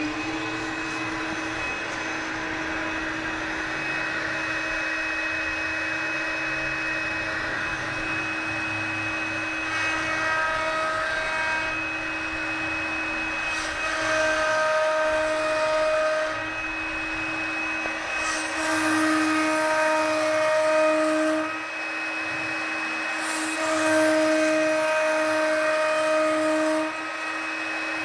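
CNC wood router's spindle running at a steady whine. From about ten seconds in, four louder, hissier stretches of a few seconds each are heard, typical of the bit cutting into wood.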